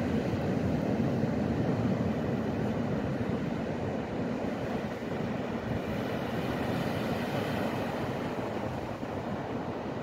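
Surf breaking on a sandy beach, a steady rumble and hiss of waves.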